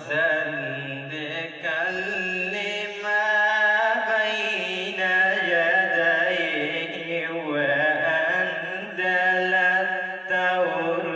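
A man's voice reciting the Quran in Arabic in slow, melodic tilawat, holding long ornamented notes. The recitation breaks briefly about two seconds in and again near the end.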